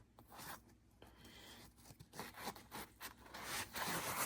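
Ratcheting box wrench being worked back and forth, its ratchet mechanism giving a fast run of quiet, uneven clicks.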